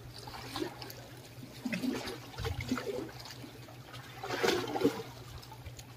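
Small waves lapping and trickling against the concrete blocks of a sea breakwater, mixed with soft, irregular handling noises while a small fish is unhooked by hand.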